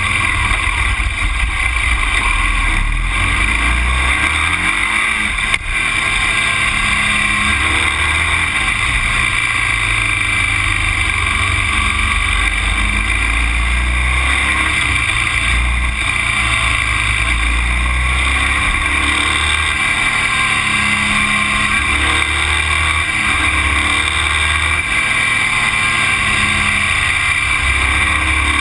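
Onboard sound of a moving road vehicle: a steady hiss of wind and road noise over an uneven low rumble on the microphone.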